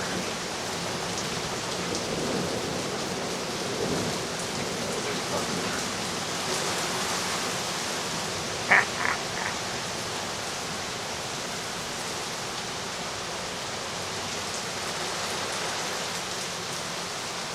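Steady rushing noise of storm rain and wind, with a short pitched sound about nine seconds in.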